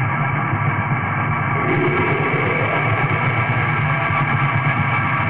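Raw lo-fi black metal: a dense, steady wall of distorted guitar, turning brighter about a second and a half in.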